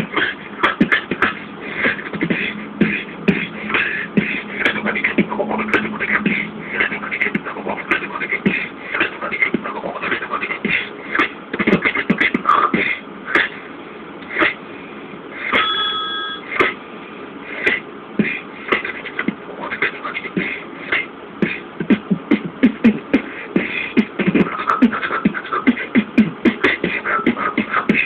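A man beatboxing into a cupped hand: a fast, unbroken run of mouth-made percussive clicks, pops and hissing beats, with a short held, steady tone just past the middle.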